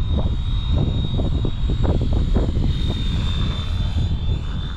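Flywing FW450 V3 electric RC helicopter in flight: a steady high motor whine with rotor noise, under heavy wind buffeting on the microphone.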